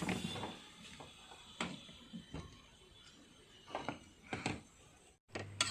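A few faint, scattered clicks and knocks over quiet room hiss.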